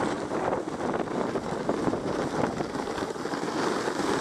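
A sled sliding fast over snow: a steady rough hiss and scrape of the sled on the snow surface, with wind buffeting the microphone.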